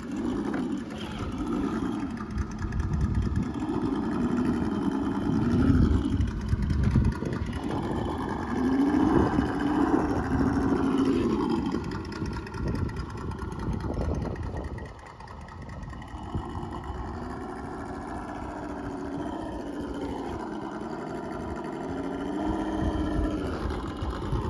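Electric motor and geared drivetrain of a radio-controlled scale crawler truck whining as it crawls over obstacles, the pitch rising and falling with the throttle and easing off briefly about two-thirds of the way through.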